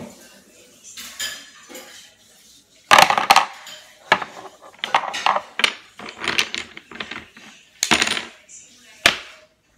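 Wooden Jenga Xtreme blocks knocking and clattering against each other and a glass tabletop as they are handled: a run of sharp clacks, the loudest about three seconds in and again near eight and nine seconds.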